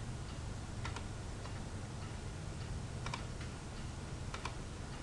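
Computer mouse clicks: three faint pairs of clicks a second or two apart, each a press and release of the button, over a steady low hum.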